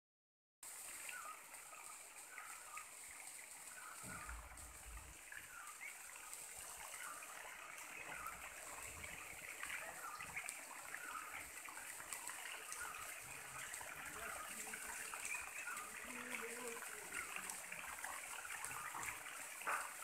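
Faint rainforest background: a steady high hiss with many short, high chirps scattered through it, and a brief low rumble about four seconds in.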